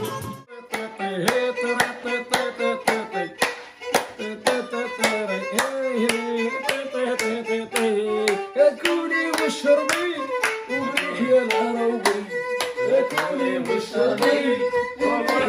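Violin folk music played with a steady beat of hand claps, about three to four strokes a second. The music breaks off briefly at the start and then comes back in.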